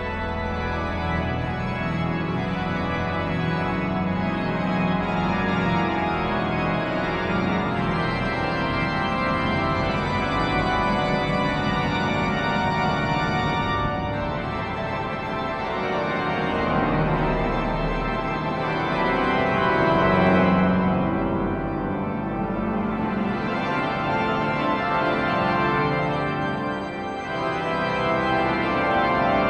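Cathedral pipe organ playing loud, dense chords over a sustained bass, swelling louder about two-thirds of the way through.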